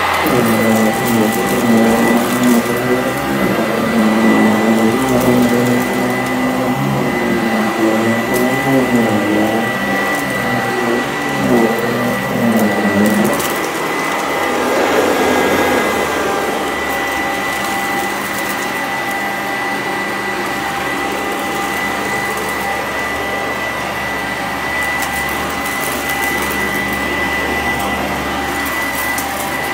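Sanitaire SC899 commercial upright vacuum running on carpet, with a steady high whine over the motor's hum. For the first dozen or so seconds its pitch wavers up and down as it is pushed back and forth, then it settles into a steady drone.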